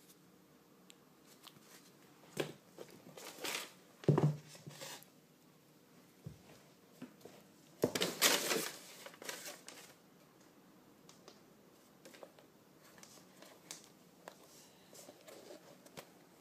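Packaging being handled: scattered rustling and crinkling of paper, with a dull thump about four seconds in and the loudest rustle around the middle.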